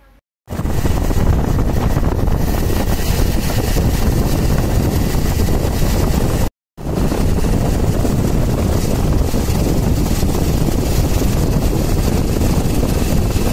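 Loud, steady wind buffeting on the microphone of a camera moving along a road on a vehicle, with any engine sound buried under it. It cuts out for a moment about six and a half seconds in, then carries on.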